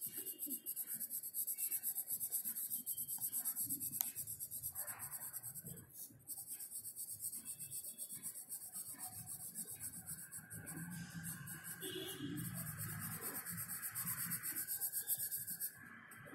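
Pencil shading on notebook paper: rapid back-and-forth strokes rubbing the lead across the page. There is a brief pause about six seconds in, and the strokes stop just before the end.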